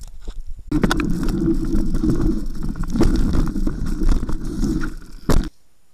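Specialized Stumpjumper 6Fattie mountain bike ridden along a wet, muddy forest trail: a loud, dense rumble of tyres and bike rattle, with sharp clatters from bumps. It starts about a second in and cuts off suddenly near the end.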